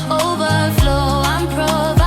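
Afrobeats-style groove: drum hits on a steady beat, a sustained bass line and a gliding melodic line, without spoken words.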